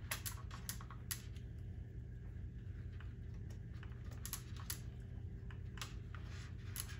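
Faint, irregular small clicks and taps of wire leads and push-on connectors being handled and pressed onto a freeze dryer's relay board terminals, over a steady low hum.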